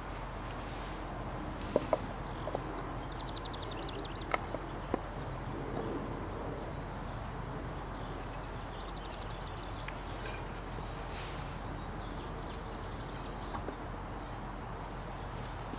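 A few sharp knocks and clicks in the first five seconds as an obsidian blade core is handled and set into a wooden holding block. Small birds chirp in short trills now and then over a steady background hiss.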